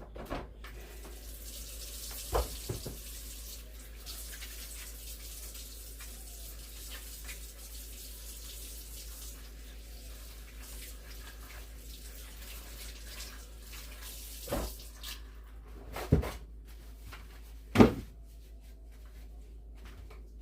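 Kitchen tap running into the sink while hands are washed, a steady hiss of water that stops about 15 seconds in. A few sharp knocks follow near the end, the loudest just before the end.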